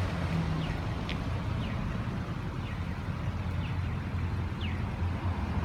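Steady low vehicle rumble in an outdoor parking lot, with short high falling bird chirps about once a second.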